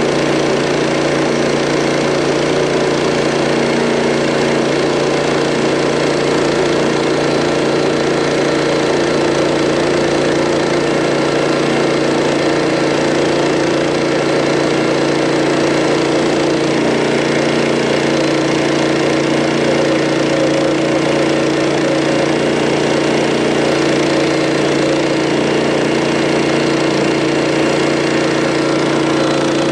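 Gasoline engine of a Harbor Freight portable band sawmill running steadily under load as the band blade saws through an oak log.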